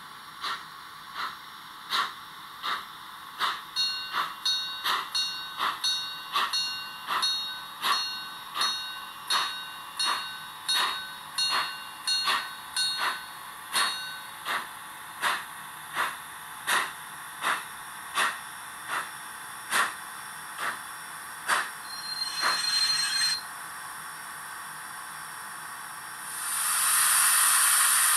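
Steam locomotive sound from the ESU LokSound V5 micro decoder in a Roco DR class 93 tank engine model, played through its small speaker. Regular exhaust chuffs quicken and then slow down and die away as the engine comes to a stop, with a short hiss about 22 seconds in and a loud steady steam hiss starting near the end.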